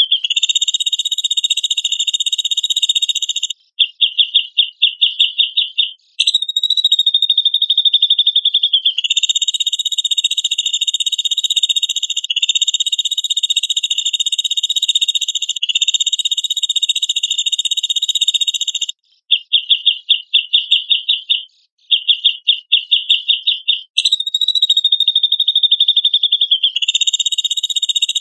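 A looped bird-call master recording: a high, buzzing trill held for two to three seconds at a time. It alternates with runs of quick separate pulses, about four a second. Twice a phrase opens with a short falling buzz.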